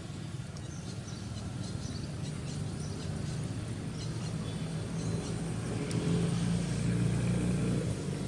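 A motor vehicle's engine running with a steady low hum, growing louder about six seconds in as it draws nearer or revs, with faint high ticks and chirps over it in the first half.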